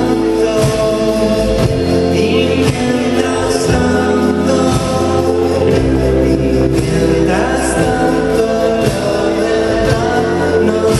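Rock band playing live: electric guitar, drums and held chords, with a voice singing over them.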